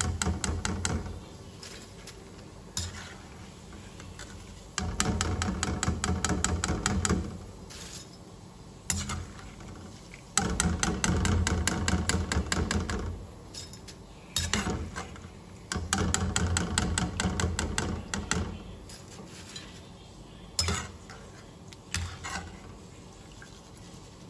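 Slotted metal skimmer scraping and rattling against a wok of hot oil as crisp fried flatbread pieces are scooped out, in several bursts of rapid strokes a few seconds long, with a fainter sizzle of the frying oil between them.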